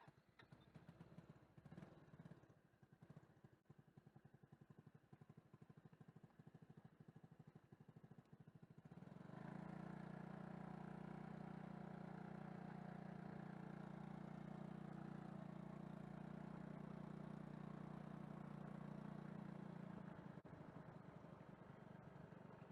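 A vehicle engine starting and running with a fast, even pulsing; about nine seconds in, a steadier, louder drone with several held tones takes over, easing slightly near the end.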